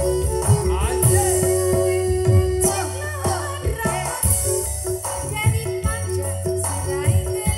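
Live campursari music: a gamelan-based band with kendang drum strokes and a shaken jingling rattle keeping the beat under held melody notes, with singers' voices over it.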